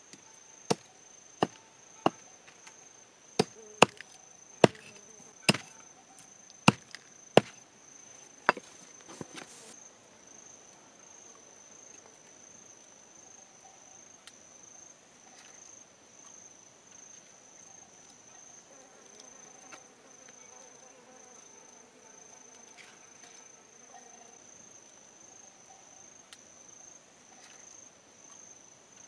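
A hatchet chopping on a wooden block: about a dozen sharp, irregularly spaced knocks that stop about ten seconds in. A steady high-pitched insect trill goes on underneath.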